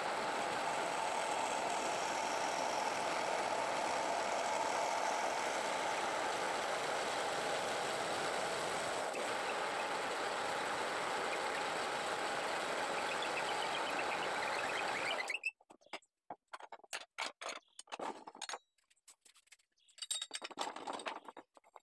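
Wood lathe running while a drill bit in the tailstock chuck bores into the centre of a spinning cumaru blank: a steady whirr that cuts off suddenly about fifteen seconds in. Afterwards, scattered clicks and knocks of tools being handled.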